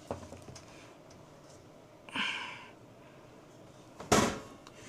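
Handling sounds while freeze-dryer parts are put back together: a small click at the start, a short rustle about two seconds in, and one sharp knock about four seconds in.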